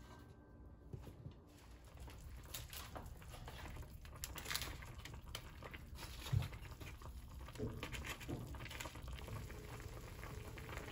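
Kabocha squash pieces simmering in a shallow frying pan of sauce, the liquid bubbling with many small crackles and pops. One dull knock about six seconds in.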